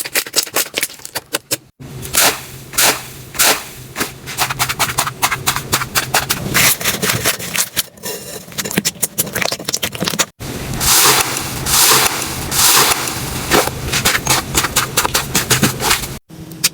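Slime being pressed, poked and stretched by hand: a dense run of sticky clicks, pops and crackles that stops and starts abruptly twice.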